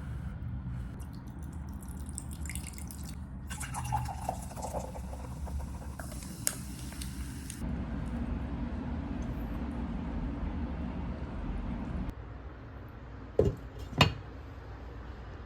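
Water running and dripping in a kitchen sink, hissing most strongly in the first half. Two sharp knocks come near the end.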